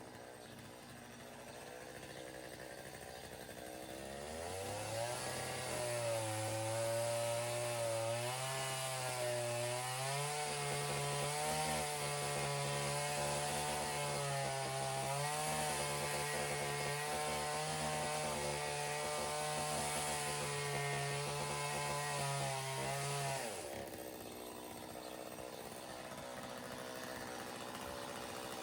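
Chainsaw running at low revs, then revved up about four seconds in and held at high revs for some twenty seconds, its pitch wavering as it cuts through dead kōwhai branches. It drops back to a low idle about five seconds before the end.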